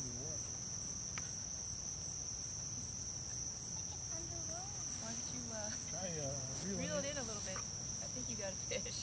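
Steady chorus of calling insects, a continuous high-pitched trill with a fainter pulsing trill above it. Soft voices come in over it in the second half.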